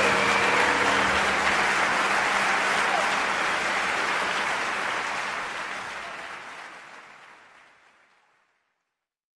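Crowd applause with cheering voices mixed in, fading out gradually to silence about eight seconds in. The last notes of background music end about a second in.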